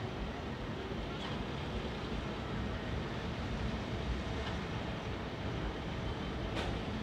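Steady road and engine noise of a moving vehicle, heard as a low rumble and hiss, with a faint tick about a second in and another near the end.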